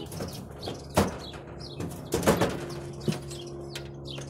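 A small Kobalt toolbox being handled and set into a bracket on a work truck, knocking several times: sharp knocks about a second in, a cluster around two seconds in and another near three seconds. Birds chirp throughout over a steady low hum.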